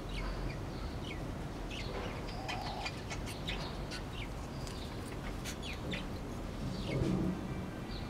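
Aviary birds chirping: many short, high chirps and quick falling calls scattered throughout, with a louder, lower call about seven seconds in.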